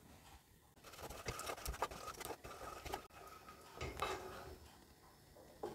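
Slotted wooden spatula scraping and knocking faintly against a nonstick pot while stirring sugar as it melts into caramel, in scattered strokes starting about a second in and a last tap near the end.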